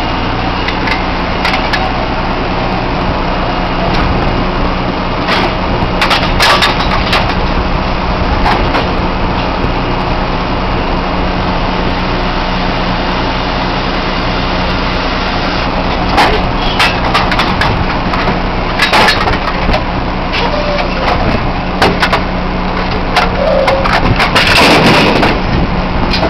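Oil drilling rig machinery running steadily while a drill-pipe connection is made, with scattered metal clanks and knocks from the pipe handling. The loudest clatter comes near the end.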